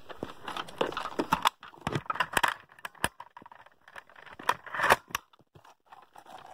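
Handling noise: a plastic toy blaster being moved and carried, with irregular rustling, scraping and sharp clicks and knocks of plastic.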